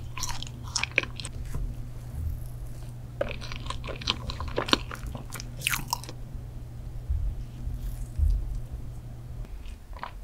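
Close-miked chewing and mouth sounds of a person eating ice cream and chocolate desserts, coming in short clusters of clicks, over a low steady hum that stops near the end.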